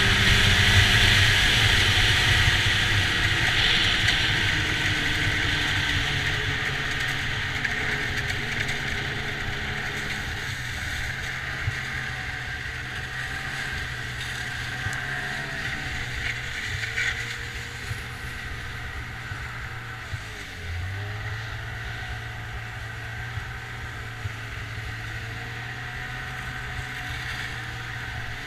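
Snowmobile engine running steadily under way, with a constant rushing of wind and track noise over it. It is loudest at first and grows gradually quieter as the sled slows into the wooded trail.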